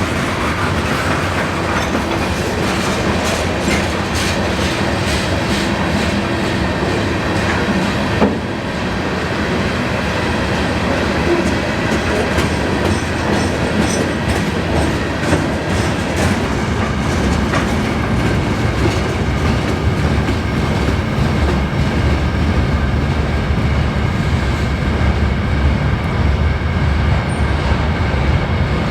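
Freight train's cars rolling past, wheels clicking over the rail joints in a steady clickety-clack, with one sharper knock about eight seconds in.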